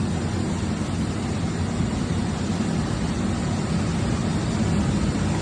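Steady low mechanical hum of a powered-up Hurco VMX64i vertical machining center, with no clear changes.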